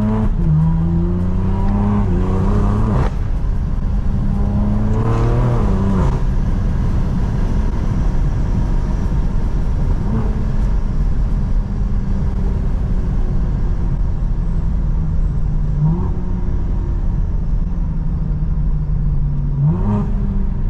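BMW G82 M4's twin-turbo S58 inline-six with a full stainless Valvetronic exhaust, accelerating hard: the engine note climbs and then drops back sharply several times as it shifts through the gears, over a steady deep exhaust drone.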